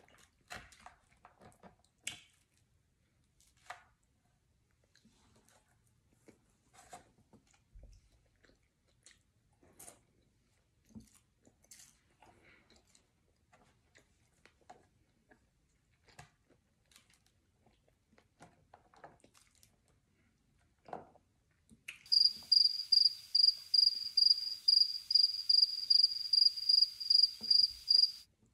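Quiet chewing with faint crunches and mouth clicks from someone eating a rice bowl. About 22 seconds in, a loud cricket-chirping sound effect cuts in, with about three even chirps a second. It stops abruptly near the end.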